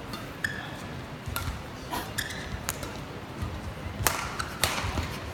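Badminton rackets striking the shuttlecock in a rally: several sharp cracks, roughly one a second, with short squeaks between them, over the hum of the arena crowd.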